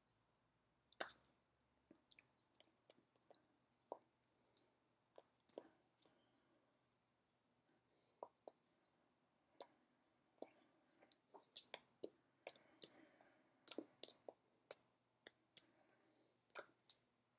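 Near silence broken by faint, irregular clicks and smacks from a person signing: hands tapping and brushing against each other and the body, and mouth and lip smacks. The clicks are most frequent in the second half.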